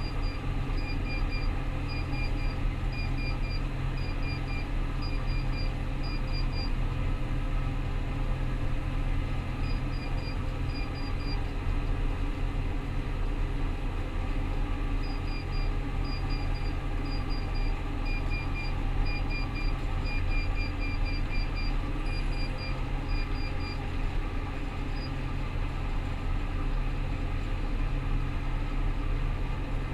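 Rostselmash Vector 425 combine harvester running steadily with a low drone. Over it, an electronic beeper sounds short groups of quick high beeps about once a second, stopping and starting again several times.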